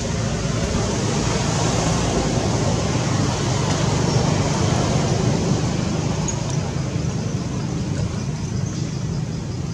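Steady rumble and hiss of motor-vehicle traffic, swelling slightly mid-way.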